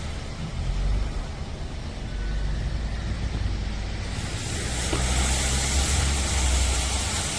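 Low rumble of a vehicle engine running, with a steady hiss coming in about four seconds in.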